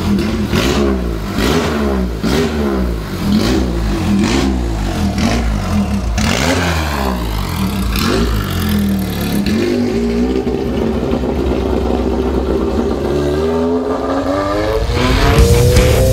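Single-seater race car engine revved in quick repeated blips, pitch jumping up and falling back about twice a second, then pulling away with longer rising sweeps as the car accelerates. Loud music comes in near the end.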